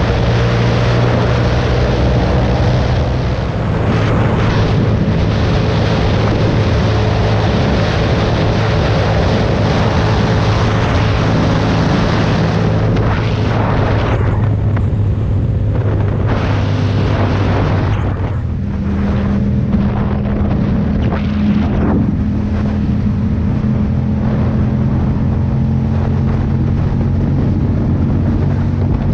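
Yamaha motorcycle engine running steadily at cruising speed, under heavy wind rush on the microphone. The engine note changes pitch about two-thirds of the way through.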